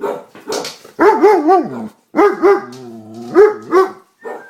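A dog barking: loud pitched barks in quick clusters, with a lower drawn-out yowl between them, about a second apart.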